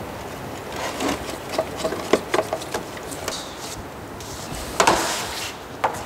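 Handling noise from wiring work: scattered clicks, light knocks and rubbing or rustling as wires and parts are moved about.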